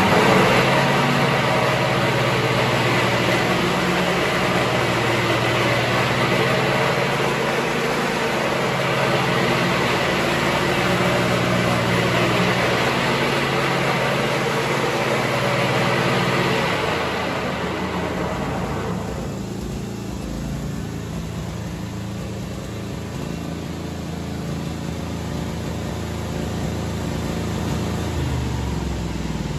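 The 17 hp two-cylinder Kawasaki gasoline engine of a 1999 John Deere LX277 lawn tractor running steadily at high throttle while the tractor drives. About two-thirds of the way through it is throttled back and runs lower and quieter.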